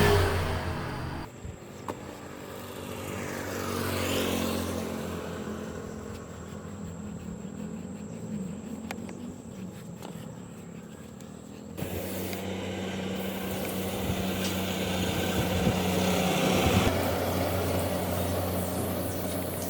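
A car engine running with a steady low hum. The sound changes abruptly twice, about a second in and again near the middle, and there is a brief rising-and-falling pitch sweep early on.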